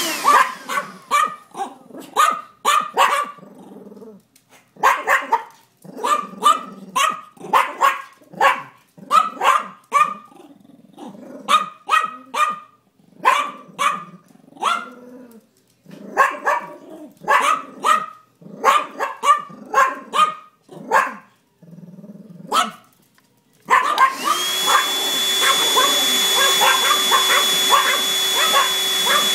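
A chihuahua and a miniature dachshund yapping at a handheld Dustbuster vacuum in rapid runs of barks with short pauses. The vacuum cuts off at the start, then switches back on about 24 seconds in and runs with a steady whine under the barking.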